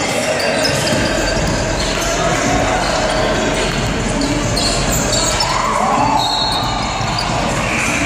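Basketball game sounds in a gym: a basketball bouncing on the hardwood court, with sneakers squeaking as players run. Indistinct voices of players and spectators call out, and the sound echoes in the hall.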